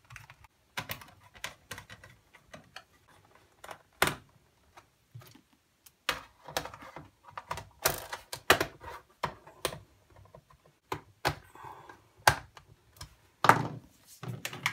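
Irregular plastic clicks, taps and scrapes of a laptop's bottom access panels being refitted and screwed down with a screwdriver, with several louder knocks as the laptop is handled on the desk.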